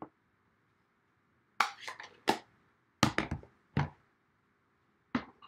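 A run of short, sharp clicks and taps from card-making tools and supplies being handled and set down on a desk, in small clusters about a second apart.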